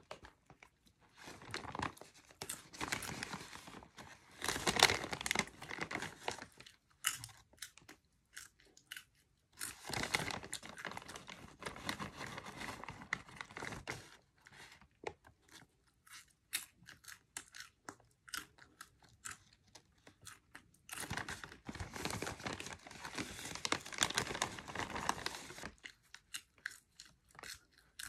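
Cheddar cheese popcorn being chewed close to the microphone in crisp crunches, alternating with three longer stretches of crinkly rustling from the snack bag.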